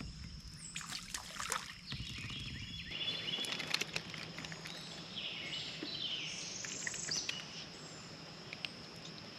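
Outdoor ambience by the water: birds calling, most clearly around the middle, over a steady high insect drone, with scattered small clicks and knocks.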